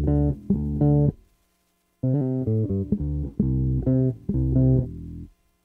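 Ibanez miKro GSRM20 short-scale electric bass playing a riff of plucked notes on its J pickup alone, with the tone set to full bass. A short phrase stops about a second in; a second phrase starts about two seconds in and stops near the end.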